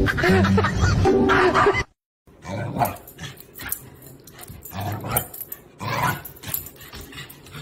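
Music for about the first two seconds, cutting off suddenly. Then a corgi-type dog giving a run of short, excited barks and growls, several in a few seconds.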